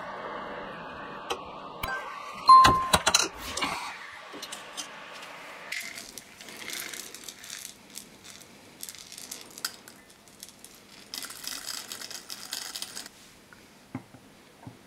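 Peppercorns poured from a plastic tub into the hollow wood-and-resin body of a pepper mill, a rattling patter of small hard grains that is densest near the end of the pour. Before it, a few loud clatters.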